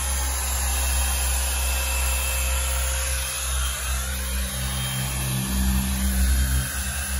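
Electric car polisher with a foam pad running steadily, buffing paint with cutting compound to remove fine scratches.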